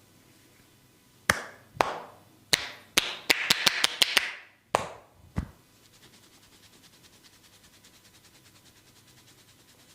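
Percussive massage strokes: a masseur's hands strike the body about a dozen times with sharp slaps and claps. A few spaced strikes lead into a quick run of taps, then two last strikes about a second apart.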